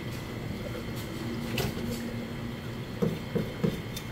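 A fish knife knocks three times in quick succession on a plastic cutting board, about three seconds in, as it cuts into a gizzard shad, over a steady background hum.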